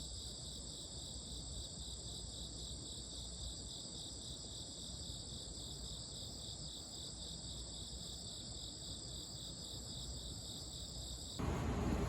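Insects, likely crickets, chirping steadily in a high, even pulsing trill over a low background hum. Near the end a much louder sound cuts in suddenly.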